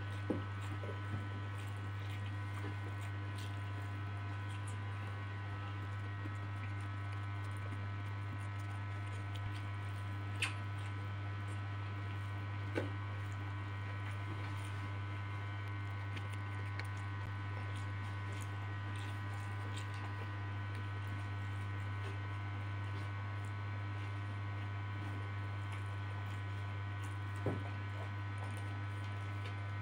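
Steady electrical mains hum throughout, with a few short, soft clicks and smacks of a man eating noodles and rice with his hand and chewing.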